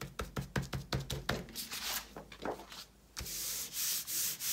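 A hand rubbing over a paper page to wipe up excess fabric glue that has seeped through a fabric hinge strip. A quick run of short scrubbing strokes in the first second and a half, then a steady rub with a white wipe from about three seconds in.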